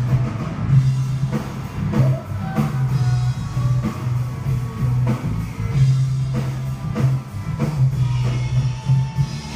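Rock band playing live at a sound check, heard muffled through a closed door: a heavy bass line and drum kit hits dominate, with electric guitar faintly above.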